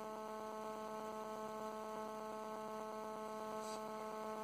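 Steady electrical hum with a stack of even overtones, holding at one pitch.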